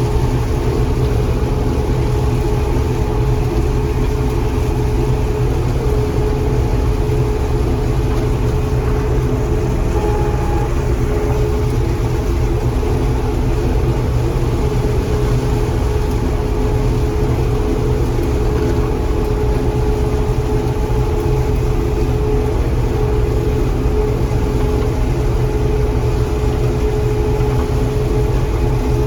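John Deere 4400 combine running steadily while harvesting corn: a constant low engine rumble with a steady machine whine above it.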